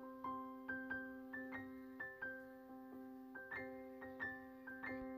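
Quiet background piano music: single notes picked out one after another, each fading away, over a steady held low tone.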